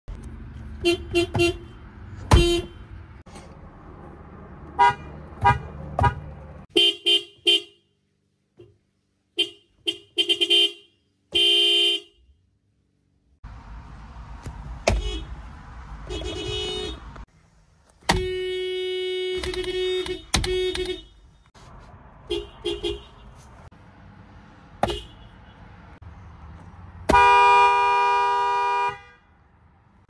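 Toyota car horns sounded one car after another: a run of short toots, then two longer held blasts, one past the middle and one near the end. Sharp clicks fall between some of the honks.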